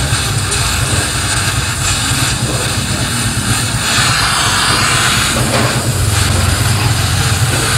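Arc (stick) welding on a scooter's steel chassis: the electrode arc sizzles steadily over a low steady hum, a little louder about four seconds in.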